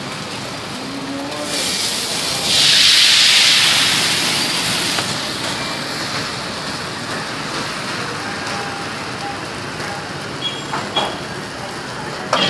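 Batter hitting hot oil in a wok: a loud sizzle about two seconds in that eases after a couple of seconds into a steady frying sizzle as the thin crepe sets. A few short clicks near the end.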